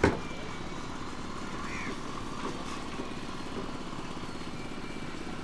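An engine running steadily in the background, a continuous even drone, with a brief knock right at the start.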